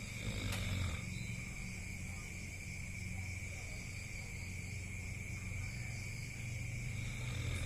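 A person snoring: low, rumbling snores that swell about half a second in and again near the end. A steady high-pitched tone runs underneath.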